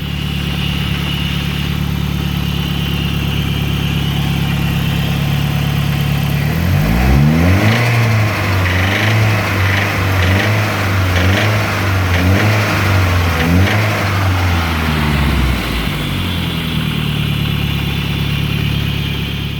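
Nissan CA18DET turbocharged four-cylinder engine idling, then revved in a series of quick blips for about nine seconds before settling back to a steady idle.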